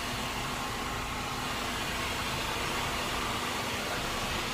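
Steady engine and ventilation noise inside a bus cabin, with a constant low hum.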